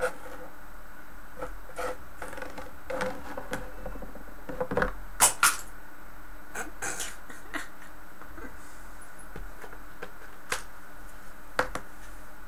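Plastic-handled scissors being pawed by a cat across a wooden tabletop and off the edge: scattered light scrapes and clicks, then two sharp clacks about five seconds in. A few more light taps come near the end, over a steady background hiss.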